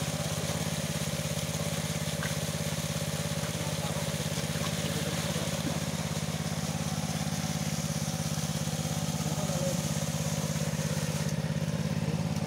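A small engine running steadily with an even low hum.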